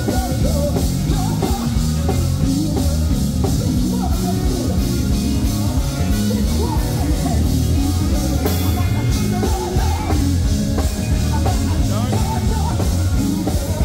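Live gospel singing with a band: a lead voice over drums and a strong bass.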